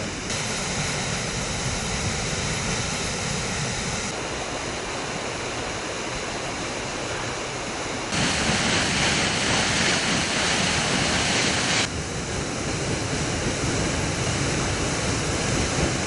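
Water blasting from a burst dam penstock pipe and spraying high into the air, a steady rushing roar. It grows louder for a few seconds around the middle as the shots change.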